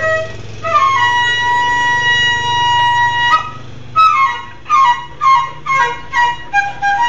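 Flute playing a long held note, then a run of short falling notes, with a dog howling along in lower, wavering pitches near the start and again near the end.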